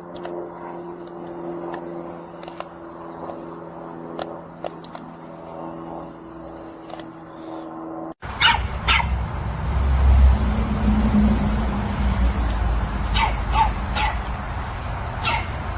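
A steady droning tone with scattered light clicks, then, after an abrupt cut about halfway through, a dog barking a few times in short pairs over a loud low rumble.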